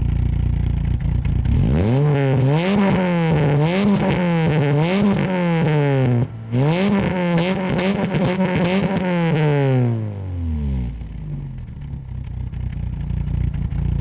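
1997 VW Polo 6N's 1.6-litre naturally aspirated four-cylinder engine, heard at the tailpipe through a home-built stainless steel rear silencer. It idles, is blipped up and down about seven times in quick succession with a short break about six seconds in, then drops back to a steady idle.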